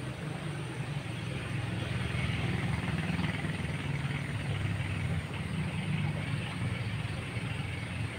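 Steady rushing of a flowing river, with a low rumble underneath.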